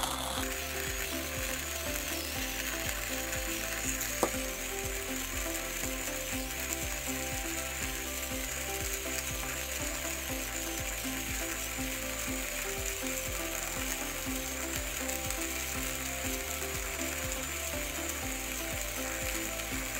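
OX portable electric burr coffee grinder grinding 20 g of beans at a pour-over setting: a steady motor hum with a continuous crackling of beans being crushed, and one sharper click about four seconds in.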